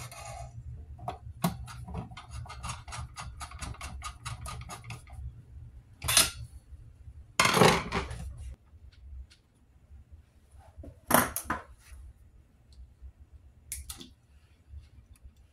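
Hand tools working on a sheet-metal power supply case. A screwdriver turns a screw with a quick run of clicks, then metal tools clatter and scrape loudly on the case and bench several times.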